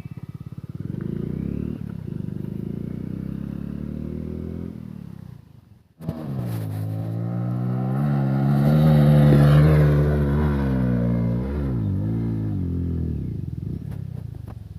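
Hero Splendor single-cylinder motorcycle engine running and revving. The sound cuts off suddenly about six seconds in and comes straight back, the revs climbing to their loudest a few seconds later, then wavering up and down and falling away near the end.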